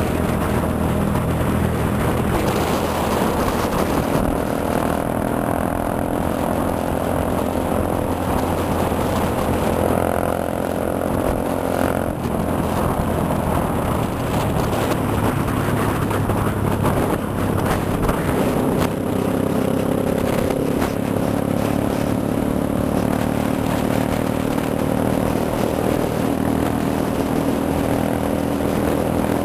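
Cruiser motorcycle's engine running steadily at cruising speed, heard from on the bike while it rides along the road.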